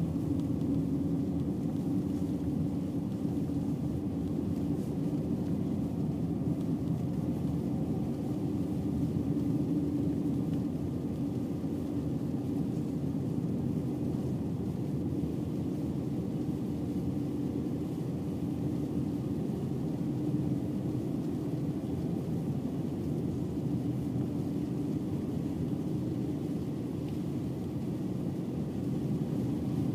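Steady low drone of a vehicle driving on a snow-covered road, engine and tyre noise heard from inside the cabin, with a constant hum underneath.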